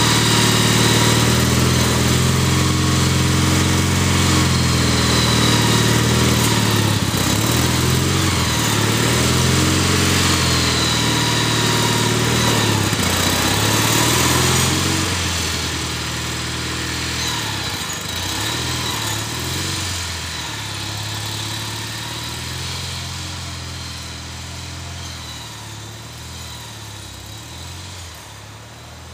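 Gravely tractor's engine running while it plows snow, its pitch rising and falling, then fading steadily over the second half as the tractor moves away.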